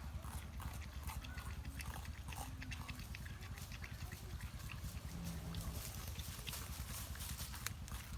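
Porcupine gnawing and crunching bamboo: a dense run of crisp clicks and crunches, over a steady low hum.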